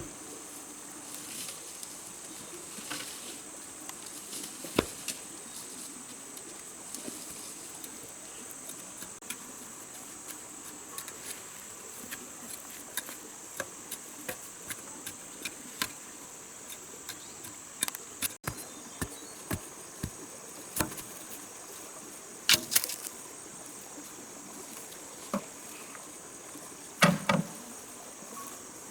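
Steady high-pitched insect chorus of the rainforest, with scattered sharp clicks and knocks throughout; the loudest knocks come about three-quarters of the way in and near the end.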